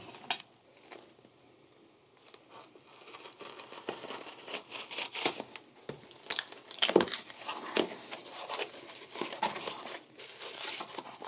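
Knife slicing and tearing the packing tape on a cardboard box, then the cardboard flaps being opened and paper crinkling: a dense run of scratchy tearing and rustling with many short scrapes, starting about two seconds in.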